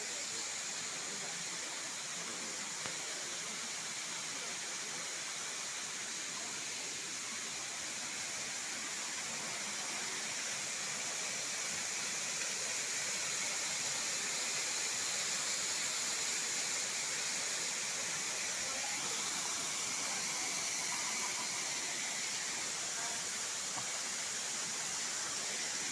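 Waterfall rushing: a steady hiss of falling water that grows a little louder about halfway through.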